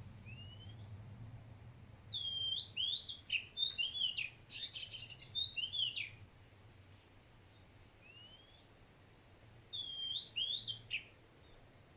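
A songbird singing: a run of quick, swooping whistled notes that stops after a few seconds and comes again near the end, with a single thin rising whistle in the pauses between.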